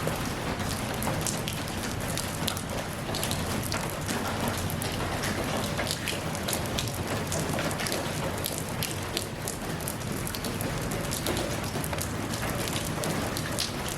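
Steady rain falling, with many separate drops pattering on a surface over an even hiss.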